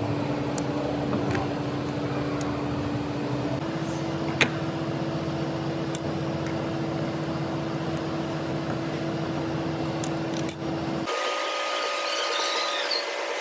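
Metal lathe running with a steady hum that steps slightly higher in pitch about three and a half seconds in, with occasional sharp metallic clicks. Near the end it changes abruptly to a hissier machining sound.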